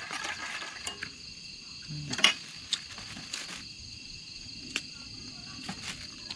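Night insect chorus, a steady high-pitched trilling drone. Scattered clicks and taps of hands handling things at a camp table cut across it, with a short voice sound about two seconds in.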